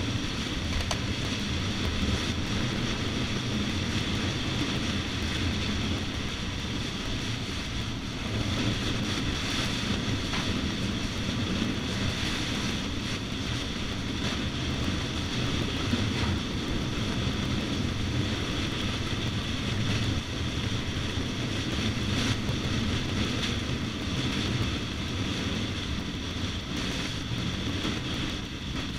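Dirt bike engine running steadily while riding along, with its rumble and road noise filling the sound.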